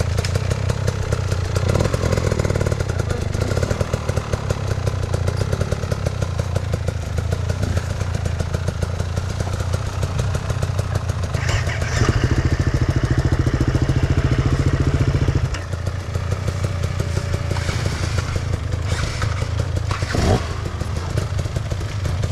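Enduro motorcycle engine running with uneven, pulsing revs, held at one steady higher note for about three seconds midway before dropping back. A couple of sharp clattering knocks are mixed in.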